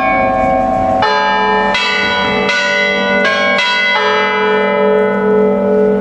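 Tuned church bells of a five-bell tower, hanging still and struck by electric hammers, playing a melody. There are about six strokes roughly three quarters of a second apart, each note ringing into the next, and after the last stroke about four seconds in the final notes hum on.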